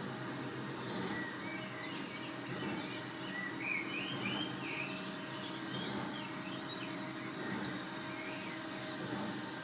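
Small birds chirping in the background: many short, high calls sweeping up and down, thickest in the middle, over a steady low outdoor rumble.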